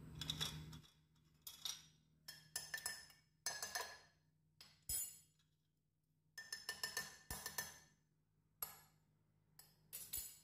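Metal spoon clinking against a ceramic mug while cocoa, sugar and instant coffee are stirred into warm milk. The faint clinks come in short, irregular clusters with quiet gaps between them.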